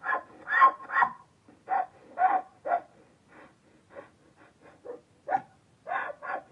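Donkey breathing in a quick rhythm of short, wheezy puffs, about two to three a second. Loud at first, softer through the middle, then stronger again near the end.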